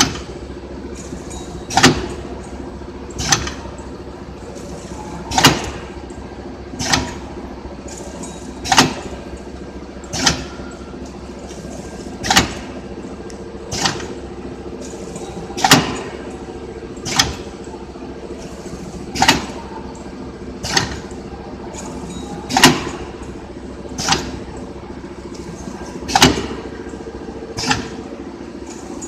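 Automatic collar-type cup-filler pouch packing machine running: a steady motor hum punctuated by sharp mechanical clacks in pairs, about one pair every three and a half seconds, as the cross-sealing jaws close and open on each pouch.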